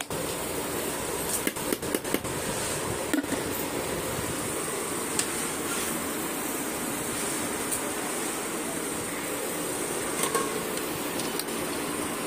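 Steady rushing hiss in a kitchen, with a few light clinks and taps of metal pot and utensils as drained rice is tipped and layered into a large aluminium cooking pot.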